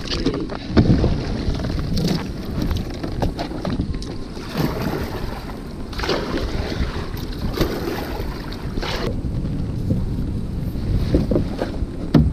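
Double-bladed kayak paddle dipping and splashing in the water, one stroke about every second and a half, over steady wind rumble on the microphone.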